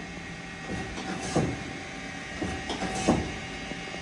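Mori Seiki CL-25B CNC lathe's hydraulic turret indexing through tool changes, a series of clunks, the loudest about a second and a half and three seconds in, over the steady running of the spindle at 500 RPM.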